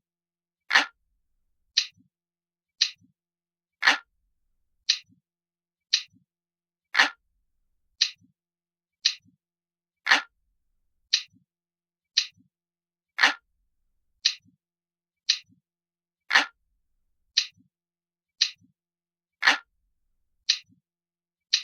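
A looped clock-ticking sound ticks steadily about once a second. Every third tick is lower and fuller.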